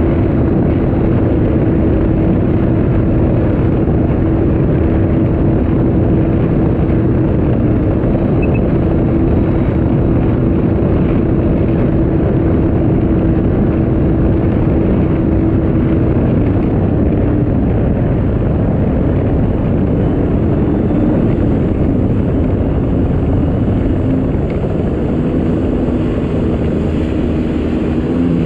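Sea-Doo RXT-300 personal watercraft under way, its supercharged three-cylinder Rotax engine running at a steady cruising note over a loud rush of water. The engine tone wavers after about sixteen seconds and drops a little in the last few seconds as the overall level eases.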